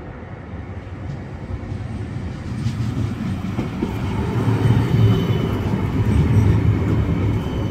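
CAF Urbos 3 light-rail tram arriving at the platform, its wheel and running rumble growing steadily louder as it approaches. A thin high tone appears near the end.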